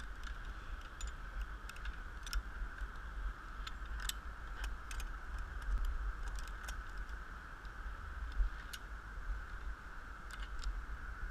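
Light metallic clinks of harness clips and carabiners, scattered irregularly over a steady high-pitched drone, with a low rumble of handling and wind on the head-mounted camera's microphone.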